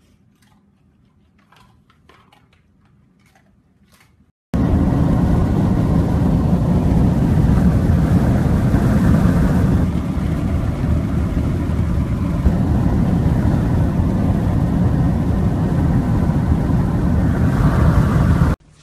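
Loud, steady rush of wind and road noise in a moving car. It starts abruptly about four and a half seconds in, after a few faint clicks, and cuts off near the end.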